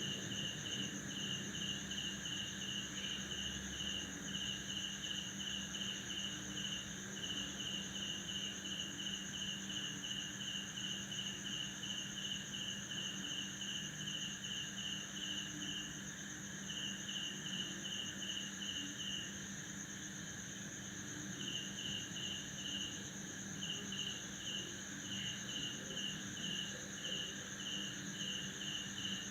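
Night chorus of crickets in a tropical garden after rain: one cricket keeps up a rhythmic chirp at about three a second, pausing briefly about two-thirds of the way through, over a continuous high trill of other insects. Frogs croak low beneath it.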